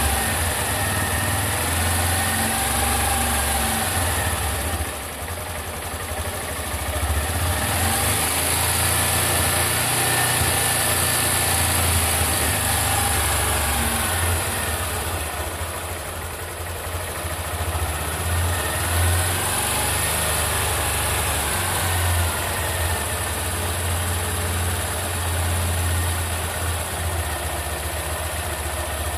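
Honda Bros 160 motorcycle's single-cylinder engine running at idle, its speed rising and falling a little now and then. The owner suspects an abnormal engine noise that appeared at about 1,000 km.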